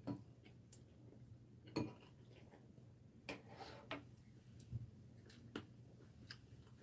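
Chopsticks clicking lightly against a ceramic bowl and plate as food is picked up: a handful of faint, irregular taps over near silence.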